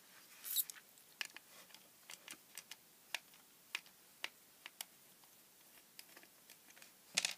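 Small screwdriver unscrewing screws from the black plastic base of a low-voltage tornado disco light: scattered light clicks and ticks of the tool and the plastic casing being handled. There is a short scratchy scrape about half a second in and a louder knock near the end.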